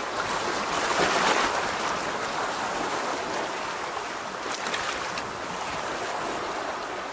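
Sea waves washing in, a steady rush with a louder surge about a second in and light crackling of foam.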